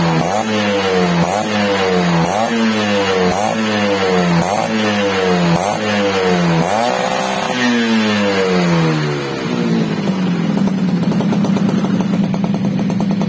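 Suzuki RC100 Bravo's two-stroke single-cylinder engine revved in quick throttle blips, about one a second, through a gutted (hollowed-out) exhaust muffler. A last, longer rev falls away and the engine settles to a steady idle for the final few seconds.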